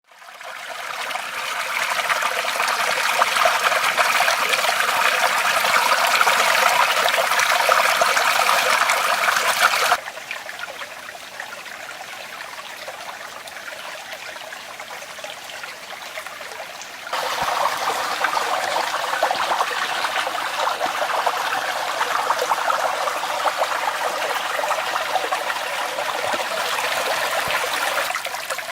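River water flowing, a steady rush that fades in at the start, drops abruptly to a quieter level about ten seconds in, and comes back up just after seventeen seconds.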